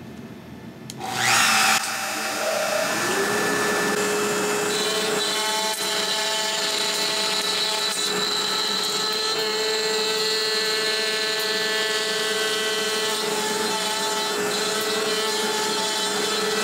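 CNC router's trim-router spindle on an Onefinity Journeyman: a brief loud rush of noise about a second in, then the spindle spins up with a rising whine and settles into a steady high whine. From about five seconds in the bit is cutting into a maple blank, which adds a higher, rougher cutting sound over the whine.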